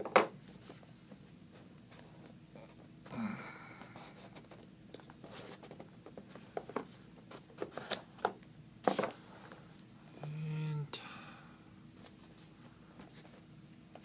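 Handling of a cardboard product box on a desk: the lid worked off the tablet's inner box, with scattered taps and knocks, a brief scrape and rustling of the tablet's plastic wrap.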